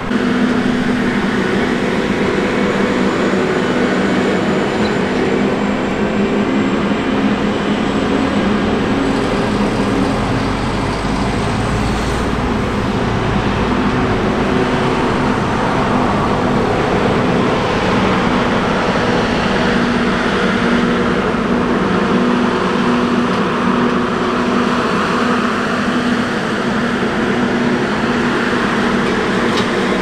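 Large diesel farm machines driving past: a Fendt 1050 tractor pulling a grain wagon and a New Holland CR10.90 tracked combine, a steady loud engine drone. A deeper low rumble swells about ten to fourteen seconds in.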